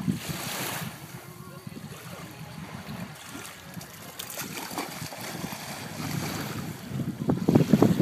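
Lake water splashing and lapping, with wind on the microphone; the rustling noise gets louder about seven seconds in.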